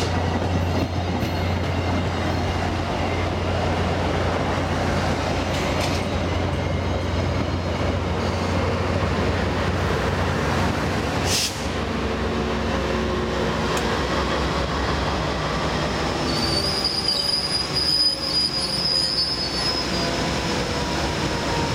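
VIA Rail passenger train, coaches trailed by P42DC locomotive 906, rolling slowly along the station track and braking to a stop: steady wheel rumble on the rails under a low drone that dies away about eleven seconds in. A brief sharp noise comes about eleven seconds in. High brake and wheel squeal, with a slowly falling tone, fills the last few seconds as the train stops.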